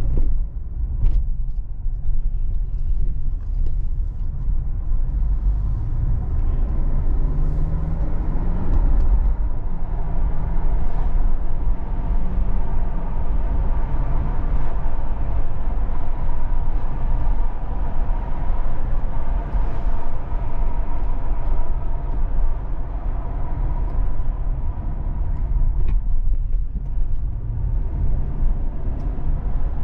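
A car driving: steady engine and road rumble.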